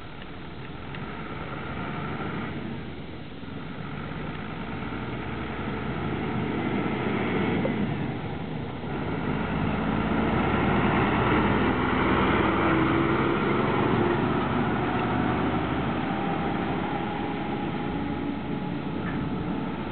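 MAN LE 220 fire engine's diesel engine running as the truck approaches, passes close by and drives away, growing louder to a peak about halfway through and then fading.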